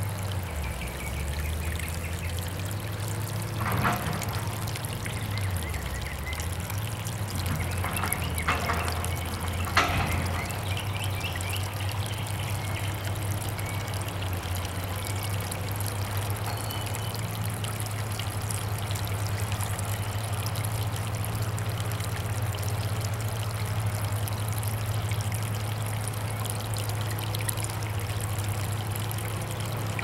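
Garden water fountain: water spilling from a half-barrel and trickling down over rocks into a small pool, steady throughout over a low hum. A few brief knocks break in around four, eight and ten seconds in.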